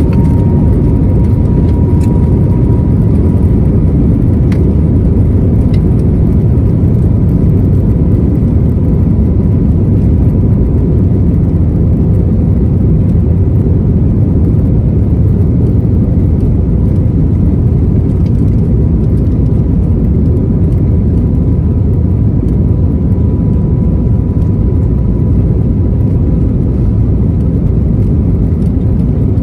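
Cabin noise of an Airbus A321neo climbing out after takeoff: the steady, loud rush of its CFM LEAP-1A engines and the airflow past the fuselage, with a faint steady whine above it.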